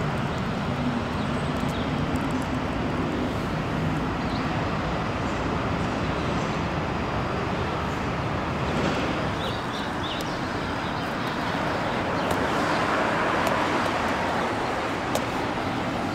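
Steady road traffic noise, an even rush of passing cars, swelling a little about twelve seconds in.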